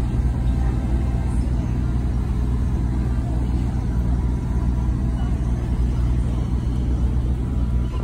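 Car ferry's engines running with a steady low rumble, mixed with the churn of propeller wash as the ship pulls away from the dock.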